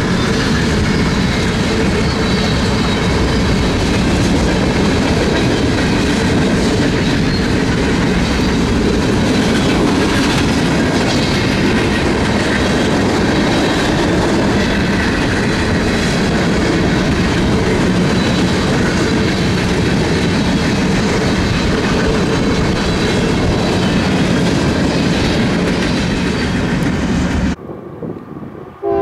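Freight train cars rolling past, their steel wheels clacking over the rail joints with a faint high wheel squeal. The sound runs steadily and cuts off abruptly about a second and a half before the end.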